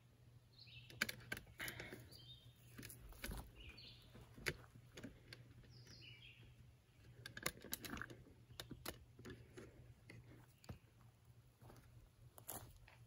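Irregular light clicks and scrapes of a knife carving a wooden spoon. A few short bird chirps come and go.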